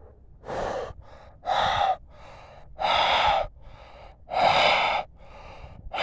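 A man blowing warm breath into his cupped hands to warm up a chilled honeybee: four long, loud out-breaths about a second and a half apart, with softer in-breaths between them.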